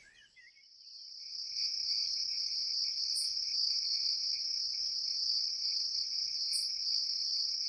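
Crickets chirping as a night-time ambience: a steady high chirring that fades in over the first second and a half, then holds level.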